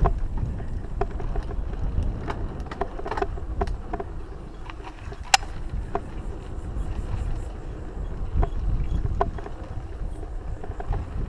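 Mountain bike riding a dirt singletrack: steady wind rumble on the microphone and tyre noise on the dirt, with scattered sharp clicks and rattles from the bike. The sharpest click comes about five seconds in.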